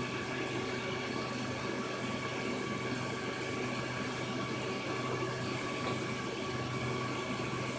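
Aquarium filter pump running in a turtle tank, with a steady hum under an even rush of moving water.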